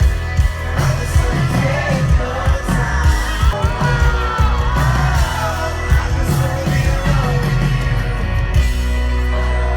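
Live concert music: a band with a heavy bass and drum beat, and a singer, loud throughout.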